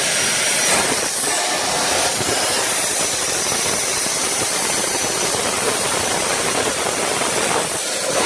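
Soitaab Omniatech plate-fabrication machine at work, giving a loud, steady hiss with faint high whines above it.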